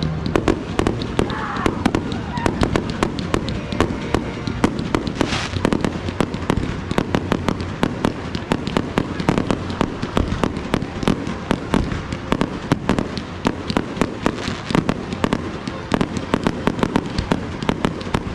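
Fireworks display: aerial shells going off in a rapid, unbroken run of bangs, several a second, as in a finale barrage.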